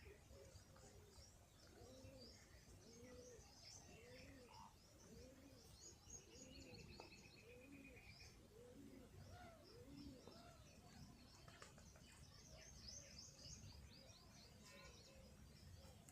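Faint pigeons cooing over and over in low, rounded calls, with small birds chirping and trilling high above them.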